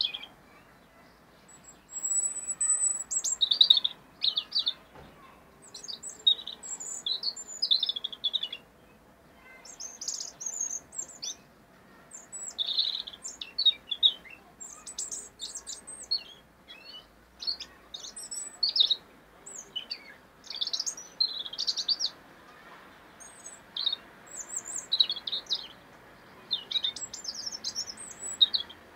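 European robin singing: a string of high, quickly varying phrases, each a second to a few seconds long, with short pauses between them.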